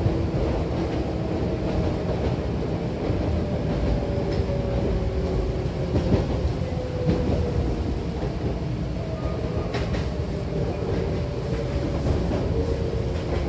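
Hankyu 8300-series electric train heard from inside the car: a steady running rumble with wheel clatter under the motors' whine, which falls slowly in pitch as the train slows. One sharp click comes about ten seconds in.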